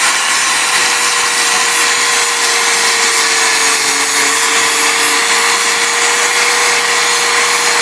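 A metalworking power tool running steadily: an even hiss with a constant mid-pitched whine, without a break.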